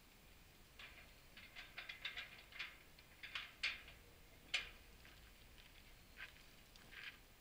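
A run of light clicks and rattles from hands handling the fittings under a hitch-mounted steel cargo rack, dense for a few seconds and ending in one sharp click about four and a half seconds in, then a few scattered clicks.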